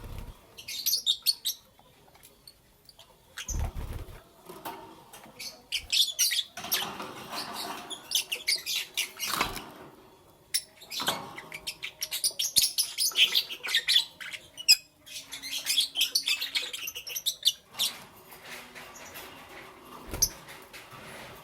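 Lovebirds chirping in rapid, high-pitched bursts of a few seconds each, with quieter gaps between them. Two brief low thumps stand out, one about four seconds in and one near the end.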